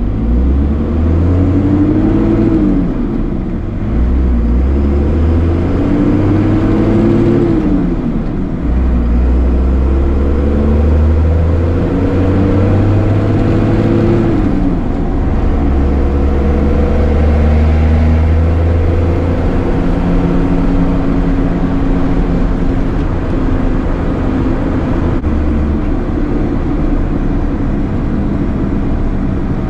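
First-generation Dodge Ram's 12-valve Cummins diesel, heard from inside the cab, pulling up through the gears: the engine note climbs three times, dropping at each shift of the manual transmission, then settles to a steady cruise.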